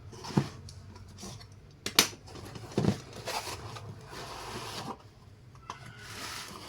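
A cardboard box of firework fountains being opened and handled: a few sharp knocks and taps, with rustling of the packaging in between.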